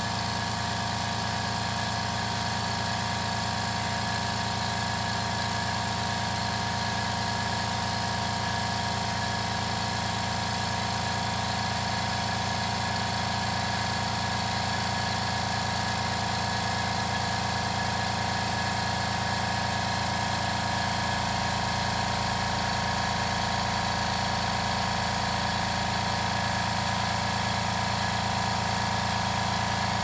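Tank-mounted airbrush air compressor running steadily as it fills its tank with air, an even motor hum with no break.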